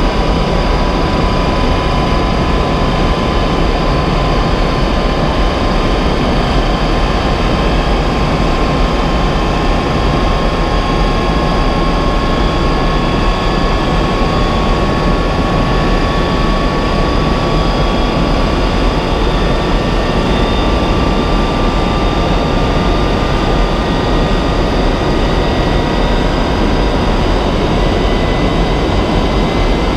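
Jet-powered semi truck's jet turbine running while the truck sits still: a loud, steady rush with a high whine that slowly rises in pitch.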